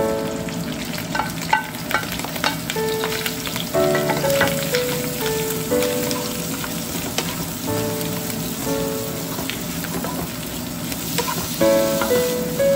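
Sliced cow intestines sizzling as they are stir-fried in a hot nonstick wok, the spatula clacking and scraping against the pan. The meat drops into the pan right at the start.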